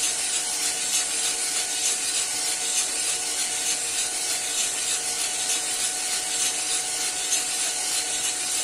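Cormorant CR600 Electric drum coffee roaster running steadily mid-roast: an even rush of the fan and drum motor with a constant hum, and a dry, grainy rustle of coffee beans tumbling in the turning drum. The beans are still in the drying stage, around 110 °C, well before first crack.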